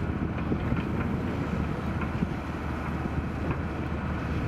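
Caterpillar 320B hydraulic excavator's diesel engine running steadily while the boom and bucket are worked.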